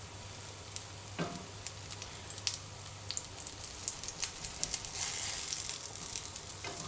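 Okara mochi pancakes frying in olive oil in a frying pan: a steady sizzle with scattered crackling pops that get busier a little past the middle.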